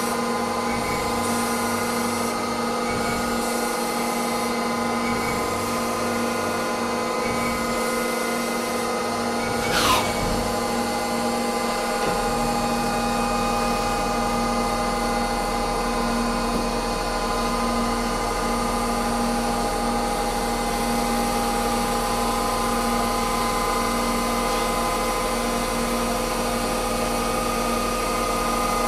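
Nomura NN-32YB2 CNC lathe turning bar stock: a steady whine from the spindle and drives, holding several tones. A brief falling sweep comes about ten seconds in, and a low hum joins about two seconds later.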